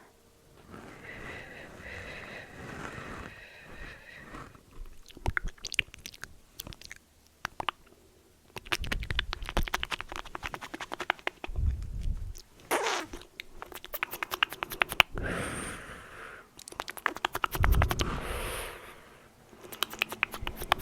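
Close-miked ASMR trigger sounds: rapid crackling clicks and scratching, with a few dull low thuds, growing denser after the first few seconds.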